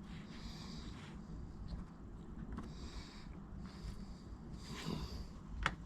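Faint handling sounds of soldering wires: four short soft hissing or rustling bursts a second or so apart, then a single sharp click near the end, over a low steady hum.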